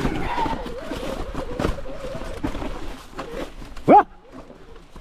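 Mountain bike clattering and knocking over a rock section, with a short loud yell from the rider just before the end.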